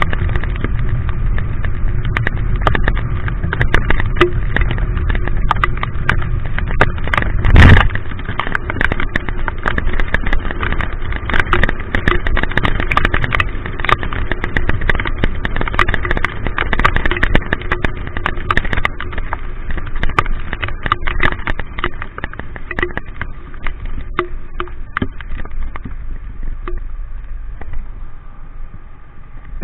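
A vehicle running along a wet road in the rain, heard from a camera mounted on it. Rain makes a dense scatter of sharp taps on the camera over a steady low rumble of engine and wind, with one louder thump about eight seconds in.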